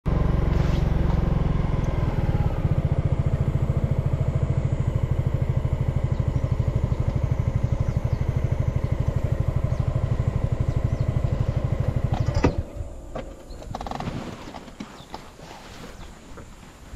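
A small engine running steadily with a fast, even low throb, then shut off suddenly about twelve seconds in with a click, leaving quieter scattered sounds.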